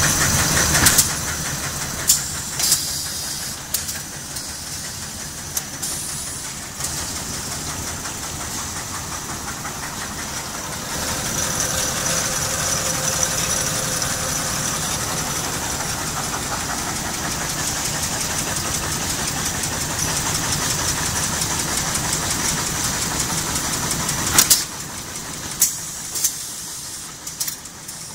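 DCM automatic-transfer interfolder machine running: a steady, fast mechanical clatter with a high hiss over it and a few sharp clicks. The noise drops a step near the end.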